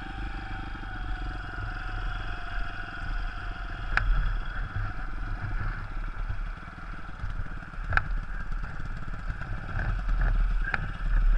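A 160 cc pit bike's single-cylinder engine running steadily at low revs, its pitch easing slightly over the first few seconds, with two sharp knocks about four and eight seconds in.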